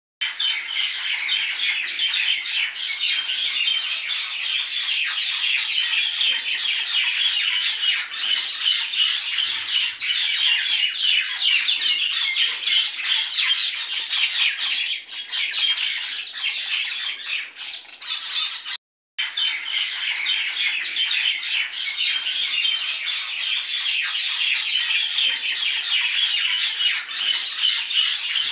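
Dense, continuous chatter of many birds, chirps and squawks overlapping without a break, cut off for a moment by a brief silence about two-thirds of the way through.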